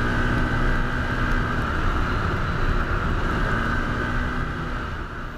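Can-Am Commander 1000 side-by-side driven fast down a gravel road: the engine runs steadily at speed under wind and tyre noise, easing off slightly near the end.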